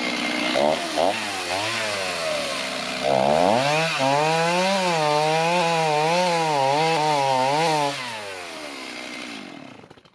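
Electric chainsaw cutting into an ash log, its motor pitch wavering up and down as the bar bites into the wood. It gets louder about three seconds in, then drops off and winds down to a stop near the end.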